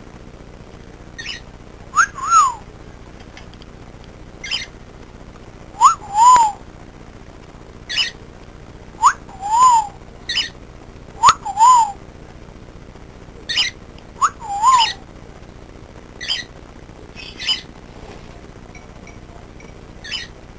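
Cockatiel whistling a repeated call: a quick rising note followed by a rise-and-fall whistle, about five times, with shorter chirps in between.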